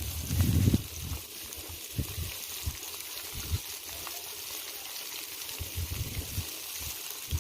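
Fish frying in hot oil in a pan over a wood fire, a steady sizzle. A low rumble fills the first second, and a few soft low knocks come later.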